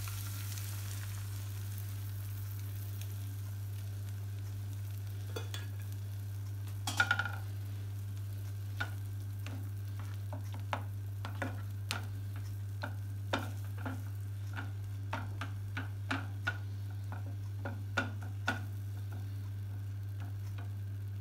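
Beaten egg sizzling as it hits a hot frying pan of fried masala, the hiss fading over the first couple of seconds, then a plastic spatula stirring and scraping in the pan with irregular clicks and taps, loudest about seven seconds in. A steady low hum runs underneath.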